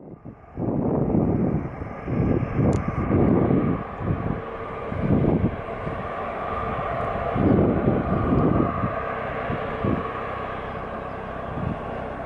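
Jet airliner's engines running loud, swelling and easing in uneven surges over a steady higher whine; the sound comes in suddenly about half a second in.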